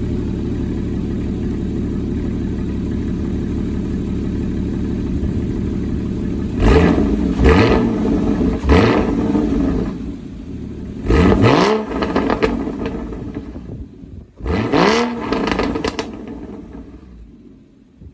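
Porsche 981 Cayman GTS flat-six through its factory Porsche Sport Exhaust (PSE), stock, idling steadily and then revved in quick throttle blips. There are three blips in a row, then a pair, then one more, each pitch rising and falling back to idle.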